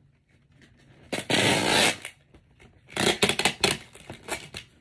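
Packing materials of a gift basket being handled: a loud rasp lasting just under a second, then a couple of seconds of sharp crinkling and rustling.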